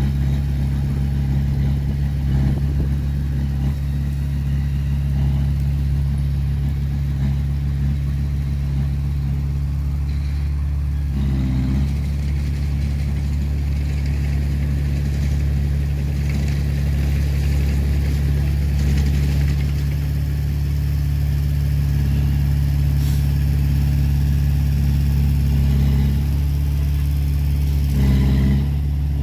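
Heavy diesel engine running steadily at a constant speed, its low drone shifting briefly about eleven seconds in and again near the end.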